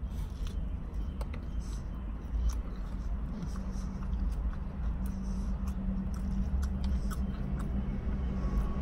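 Close-up biting and chewing of a soft flour-tortilla taco, with scattered small wet mouth clicks, over a steady low hum.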